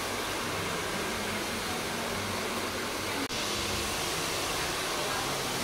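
Steady rushing air noise, even and unbroken apart from a brief dropout about three seconds in.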